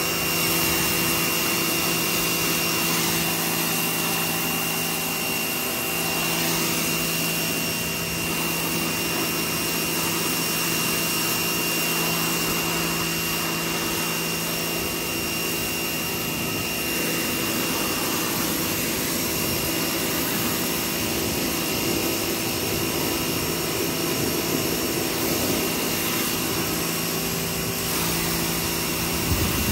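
Pressure washer running steadily with a constant hum, its water jet spraying onto a dog's coat and the concrete floor with a steady hiss.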